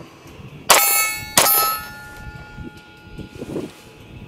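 Two 9mm pistol shots from an Arex Delta M, less than a second apart, each followed by the ringing clang of a steel target being hit.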